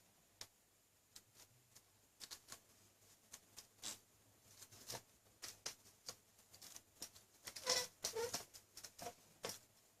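Faint, irregular clicks and taps of a plastic phone tripod being handled and adjusted, its legs and extension being set and tightened.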